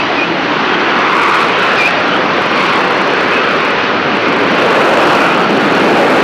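McDonnell Douglas AV-8B Harrier II's Pegasus turbofan running loud and steady: a dense, even jet noise with no sharp changes.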